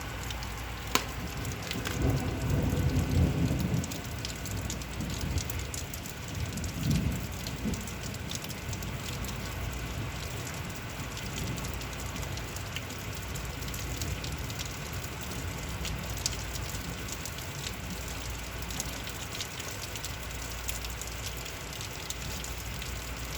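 Heavy rain falling steadily, with scattered drips and patters. About two seconds in, a low rumble of distant thunder swells for a couple of seconds, with a shorter swell a few seconds later.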